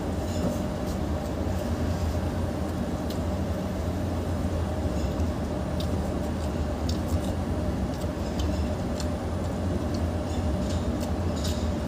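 A steady low droning hum runs throughout. Over it come scattered short wet clicks and smacks of chewing and of fingers working rice and curry on a metal plate.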